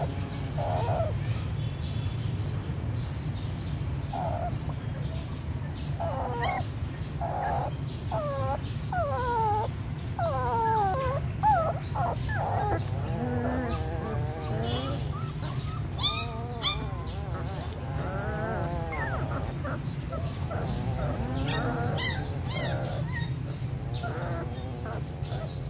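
Young puppies whimpering and whining, a run of short cries that fall in pitch, sparse at first and coming thick and fast from about six seconds in, over a steady low hum.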